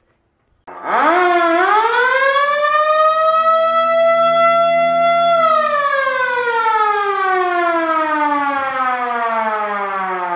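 Fender-mounted mechanical siren on an antique fire truck winding up: the wail starts about a second in and climbs quickly. It holds one steady pitch for a few seconds, then winds down in a long falling wail.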